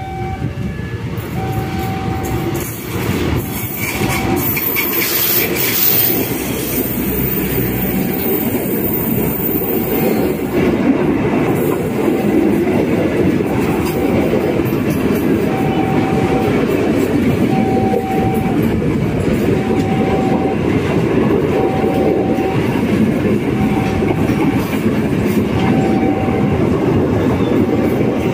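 Diesel-hauled passenger train passing close by, a steady, loud rumble of wheels on rail with clickety-clack that builds in the first few seconds as the locomotive arrives. A level-crossing warning signal sounds a short beeping tone that repeats every second or two.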